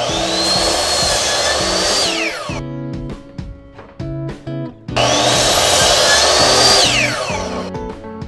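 Ryobi miter saw making two cuts through a wooden board: each time the motor whine rises as the blade spins up, holds for about two seconds through the cut, then falls away as the blade spins down. The second cut starts about five seconds in.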